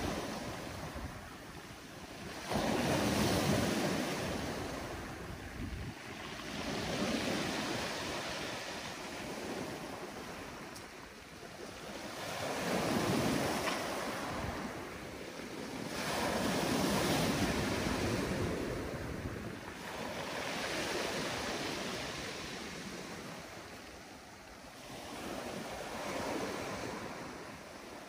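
Small waves breaking and washing up a pebbly beach, the surf rising and falling every few seconds.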